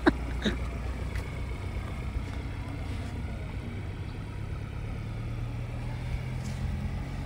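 Ford Ranger Raptor pickup's engine running as the truck pulls away slowly across soft sand: a steady low drone that grows a little louder and rises slightly in pitch about five seconds in.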